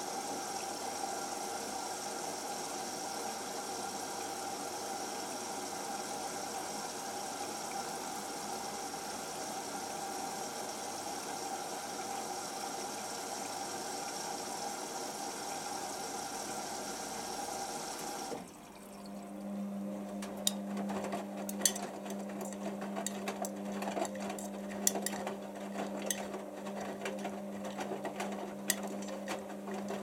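Hotpoint Aquarius WML540G washing machine topping up with water after sensing the load size, a steady rushing hiss through the inlet valve. About eighteen seconds in the fill stops suddenly and the drum motor takes over with a steady hum as the drum turns, with scattered knocks and splashes from the wet load tumbling.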